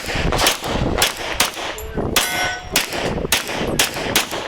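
Rapid pistol fire from a Glock, about two shots a second, with steel plates ringing when hit.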